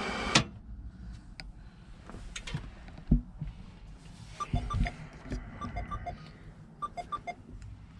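A sharp click, a few low knocks, then a run of short electronic beeps from the truck's radio as its buttons are pressed to set the preset channels.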